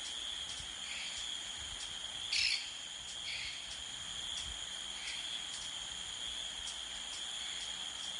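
Crickets calling in a steady, high-pitched trill, with a few short bird chirps over it; the loudest chirp comes about two and a half seconds in.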